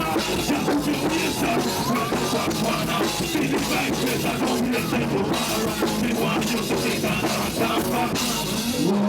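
Loud rock music with a drum kit beating steadily and a singing voice.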